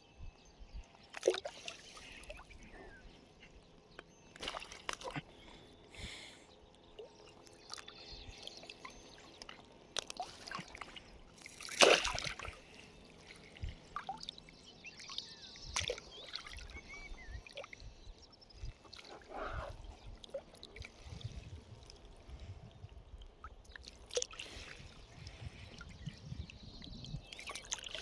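Water splashing and trickling in irregular bursts, with scattered knocks and one louder splash about halfway through.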